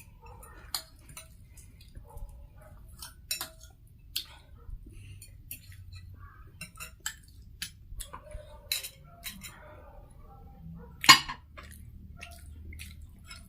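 Tableware clinking during a meal: scattered sharp clicks and taps of utensils against plates and dishes, with one louder clink about eleven seconds in.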